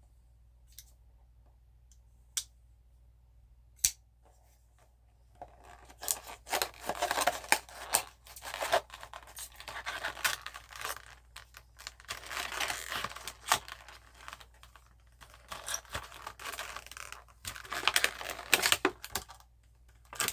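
Diecast model car's cardboard-and-plastic retail package being torn and pried open, with continuous tearing, scratching and crinkling and many small clicks. It starts about five seconds in, after a few light clicks.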